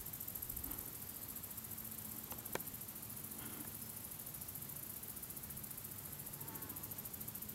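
Faint background hiss with a single sharp click about two and a half seconds in, and a few faint short chirps.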